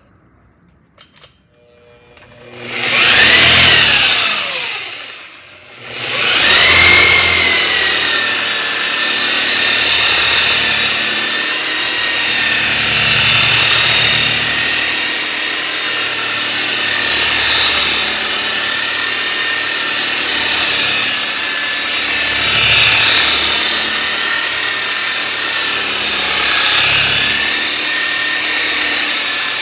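Old Harbor Freight rotary polisher with a wool pad spinning up about two seconds in, winding down briefly, then starting again and running steadily. Its loudness swells and eases as it is worked over the panel, cutting back 1500-grit wet-sanded single-stage paint with compound.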